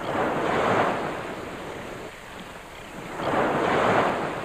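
Small waves washing up over a coral-rubble beach, two swells of surf about three seconds apart.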